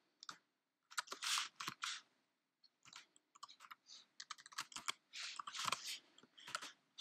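Typing on a computer keyboard: irregular runs of keystrokes, one cluster about a second in and a longer run from about three to six and a half seconds in.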